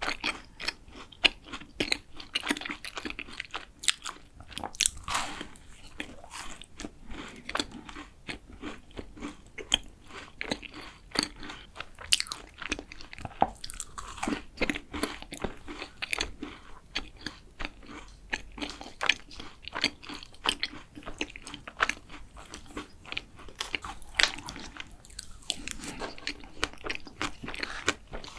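Close-miked biting and chewing of a chewy chocolate macaron, with many crisp, irregular crunches and clicks throughout.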